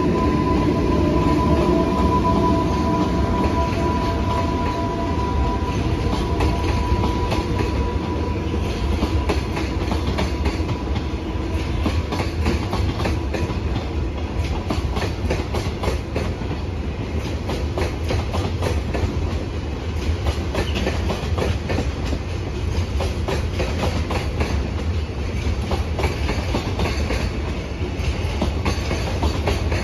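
A container freight train hauled by an EH500 electric locomotive runs past, its wheels clattering steadily over the rail joints. A high whine in the first few seconds fades out after about ten seconds.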